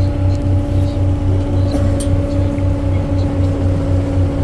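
River cruise boat's engine running steadily, a low hum with a throb pulsing about four times a second.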